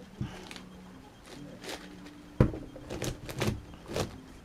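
Plastic layers of an 11x11x11 Rubik's cube being turned by hand: a string of irregular clacks and sliding clicks, several close together in the second half.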